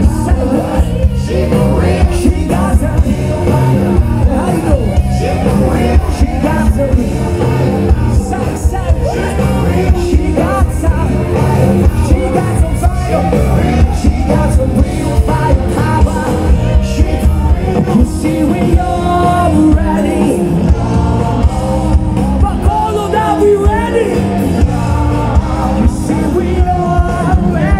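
Live rock band with a male lead singer, played loudly over a concert PA, with a steady beat.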